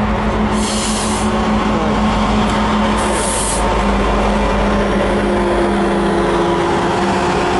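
Canadian National diesel-hauled freight train passing close by, its locomotive engines running with a steady hum. Two short bursts of hiss come about half a second in and again about three seconds in.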